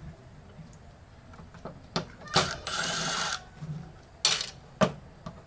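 Screws being backed out of a flat-screen TV's back panel with a screwdriver: a steady whir about a second long near the middle, with sharp clicks and knocks before and after it.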